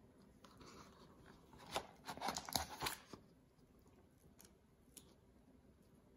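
Faint rustling and scraping for a couple of seconds, then two soft clicks.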